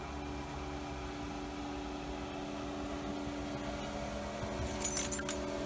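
Steady hum of a car's engine and air-conditioning fan heard from inside the cabin, with a few light metallic jingling clicks near the end.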